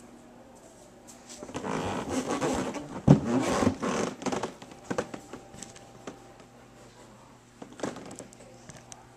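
Rustling and scraping handling noise from a handheld camera being moved, with a few sharp knocks, loudest about three seconds in, then scattered clicks and taps.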